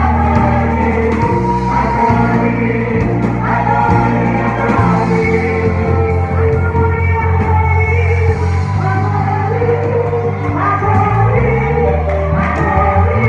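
Christian worship song: several voices singing together over sustained low bass and keyboard notes that change every couple of seconds.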